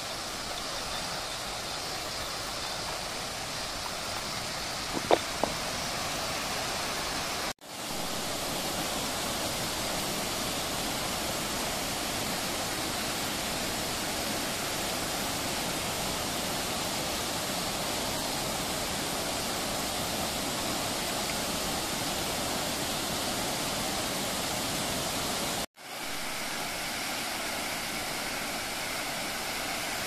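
Steady rushing noise of a broad curtain waterfall and its plunge pool. A single sharp click about five seconds in, and the sound cuts out for an instant twice, about a quarter of the way in and near the end.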